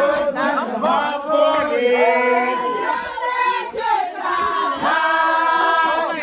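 A group of men and women singing and chanting together, many voices overlapping, with long held notes near the end.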